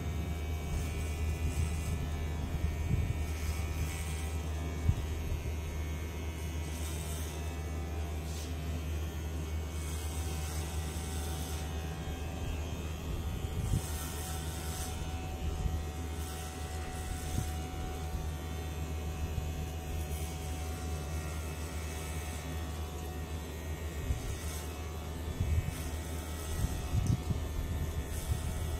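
Cordless electric hair clipper running steadily with a low buzz as it trims hair on the side of the head and around the ear, with a few short clicks along the way.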